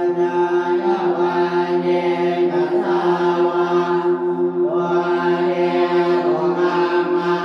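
Background music of slow, droning chanting voices held over a steady, pulsing drone note, with a short break between phrases about four and a half seconds in.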